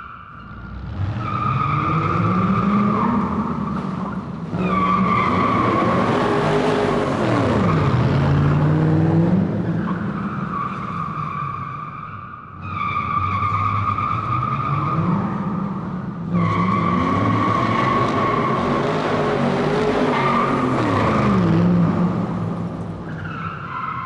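Car tyres squealing in long, continuous screeches, broken off briefly a few times. Beneath the squeal an engine revs up and down.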